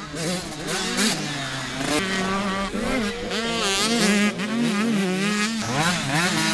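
Motocross dirt bike engines revving hard on the track, the pitch rising and falling over and over as the riders work the throttle through jumps and corners, with several engines overlapping.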